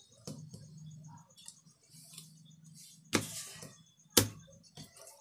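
Playing cards being handled and put down on a tiled floor: soft rustles and small ticks, with two sharper slaps about three and four seconds in, the second the loudest, over a faint steady low hum.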